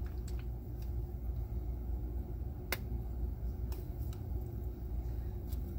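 Steady low room hum with a few scattered light clicks, the sharpest about two and a half seconds in.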